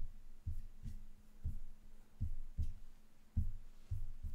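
Dull low thumps, about eight, coming irregularly roughly every half second, over a faint steady hum.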